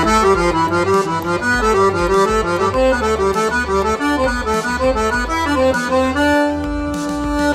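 Hohner piano accordion playing a quick finger exercise: fast runs of short notes in repeating groups that step up and down the keyboard, over low bass notes, settling on one held note about six seconds in.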